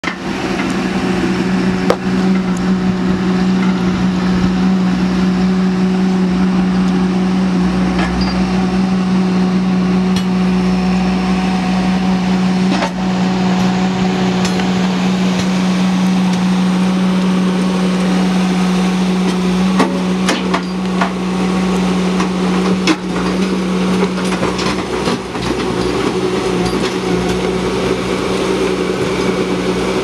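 Ditch Witch SK900 mini skid steer's engine running at a steady speed while the machine tracks and digs. A few sharp clanks come through, mostly in the second half, as the steel bucket works rocky soil.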